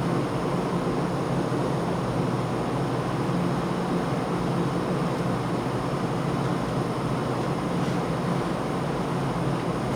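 Steady drone of an airplane in flight heard from inside the aircraft: an even rushing noise over a low hum, unchanging throughout.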